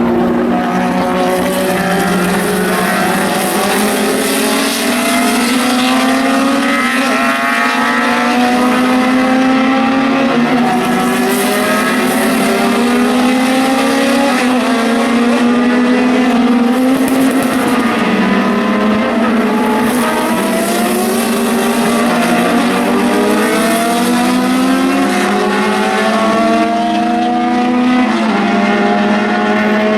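A stream of 1970s–80s endurance race cars accelerating hard past, their engines climbing in pitch and dropping back at each upshift, several cars overlapping one after another.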